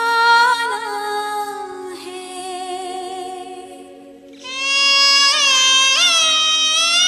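A song: a voice holds long notes that waver and slide in pitch over a steady drone. It gets quieter for a moment, then swells into a louder held note about two-thirds of the way in.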